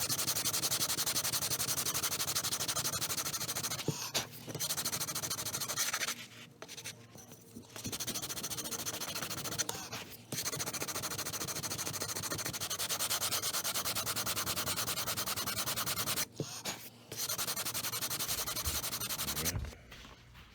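Fine-grit sandpaper on a radius block being rubbed back and forth over an ebony fretboard in quick, even strokes, with a few short pauses, stopping near the end. It is sanding flush a chip-out repair filled with ebony dust and super glue.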